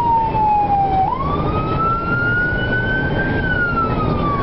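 Emergency vehicle siren on a slow wail, heard from inside the cab over engine and road noise. The pitch falls, sweeps back up about a second in, climbs slowly, then falls again past the middle.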